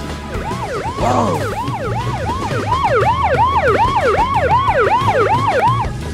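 Police siren in a fast yelp, its pitch sweeping up and down about three times a second. A single longer falling whistle-like glide sounds about a second in.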